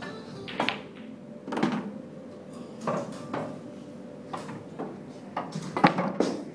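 Pool balls clacking on a pool table: the cue tip striking the cue ball and balls knocking into one another and the cushions. It comes as a scatter of sharp clacks, the loudest near the end.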